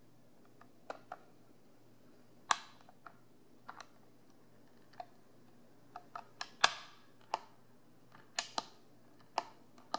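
Hand-worked fuel control lever and switch mechanism of a homemade model jet engine's control panel, clicking as the lever is moved back and forth. About fifteen sharp clicks come at uneven spacing, two of them, about two and a half and six and a half seconds in, louder than the rest.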